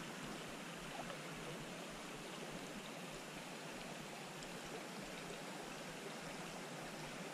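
Small shallow creek flowing steadily, a soft, even rush of running water.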